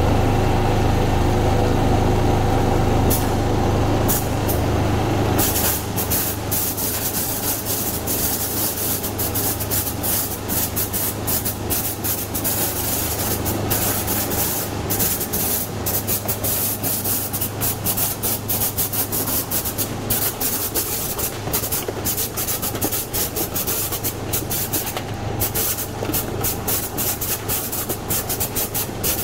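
Dried-apricot sorting machine running: a steady low machine hum, strongest for the first five seconds or so. After that, quick irregular clicks and ticks from the line pile on over a lighter hum.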